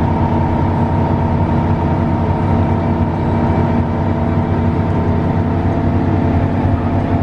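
Front-engined bus's diesel engine running steadily at cruising speed, with road noise, heard from inside the passenger cabin.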